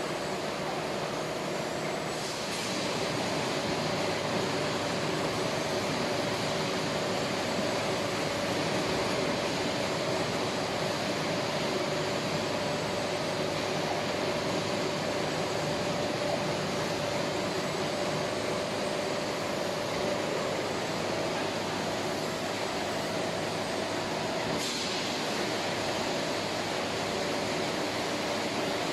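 Steady machinery noise with a constant hum, growing a little louder about two seconds in, and a brief sharper noise near the end.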